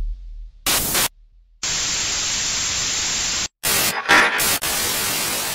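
Harsh TV-style static hiss used as a glitch sound effect, in choppy bursts: a short burst, a steady stretch of about two seconds, then several quick stuttering bursts before it cuts off suddenly.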